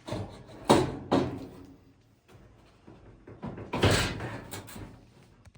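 Knocks and bangs from an Amana clothes dryer's sheet-metal cabinet being handled during a repair: two sharp knocks within the first second and a half, then a longer bang that rings on briefly about four seconds in.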